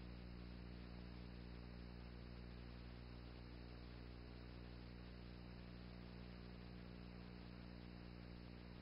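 Near silence: a steady low electrical hum with its overtones and a faint hiss, with no other sound.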